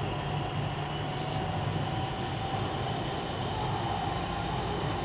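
Dubai Metro train running along elevated track, heard inside the carriage: a steady rumble with a low hum and a faint steady whine.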